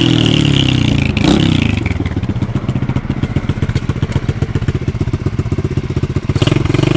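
Lifan 125cc pit bike's single-cylinder four-stroke engine: the revs fall over the first couple of seconds, with a knock about a second in, and it settles to an even idle beat before a brief blip of throttle near the end.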